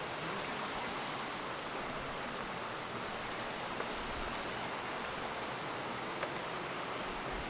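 Steady rushing of flowing stream water, even and unbroken, with a few faint ticks.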